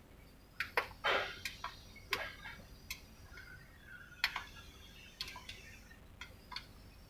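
Irregular light metallic clicks and taps, a dozen or so spread unevenly over several seconds, as of hand tools being handled against metal parts.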